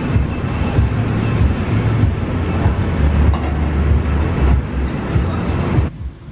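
Steady, loud low rumble with a noisy hiss above it, cutting off abruptly about six seconds in.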